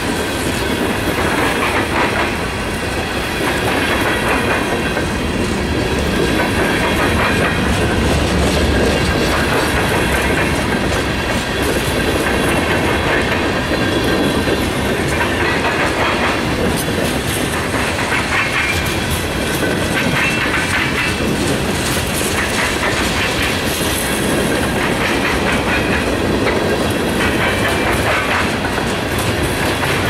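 Freight train cars rolling past, a steady rumble of steel wheels with repeated clickety-clack as the trucks cross rail joints.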